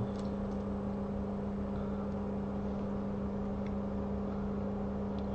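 Steady low electrical hum with a fixed pitch, with a few faint ticks over it.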